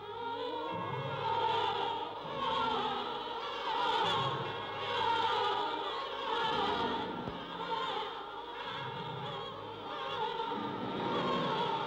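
Orchestral film score with operatic choral singing, swelling and falling in waves.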